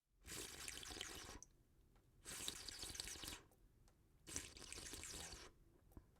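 A person slurping liquid three times in a row, each slurp lasting about a second with a short pause between.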